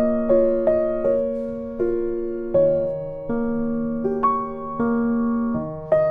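Background music: a slow, gentle piano or electric piano melody, notes struck and left to ring and fade, over sustained chords.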